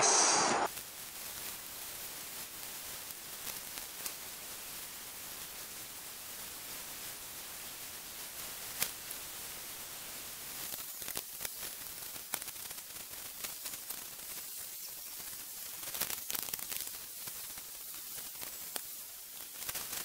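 Faint steady hiss, with scattered soft clicks and rustles in the second half.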